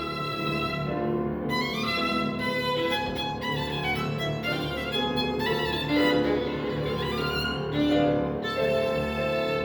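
A violin playing a melodic passage, one bowed note after another, changing notes every half second or so.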